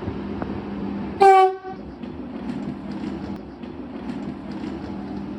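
Passenger train running with a steady rumble and hum, and a single short horn blast about a second in.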